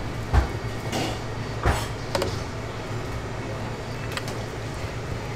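Kitchen work noise: a handful of sharp knocks and clinks, irregularly spaced, over a steady low hum.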